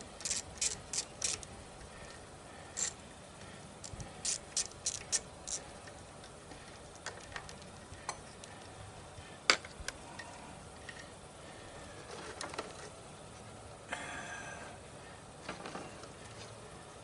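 Hand tools clicking on a riding mower's engine while its control cables are being disconnected: quick runs of sharp clicks at about four a second, then scattered knocks with one louder knock about halfway through and a short rustling scrape near the end.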